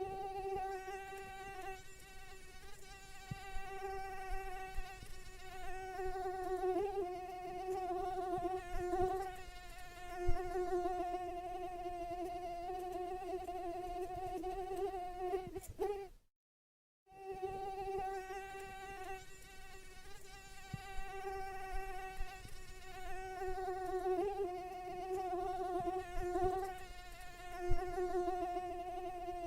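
A mosquito's high, thin whine from its beating wings, holding a steady pitch that wavers slightly. It drops out for a moment about 16 seconds in and starts again. A few soft low thumps sound under it.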